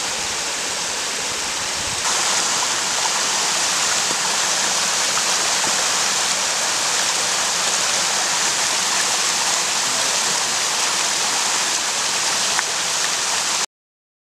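Snowmelt mountain stream rushing over rocks in small cascades, a steady rush of water that gets louder and brighter about two seconds in, then cuts off abruptly near the end.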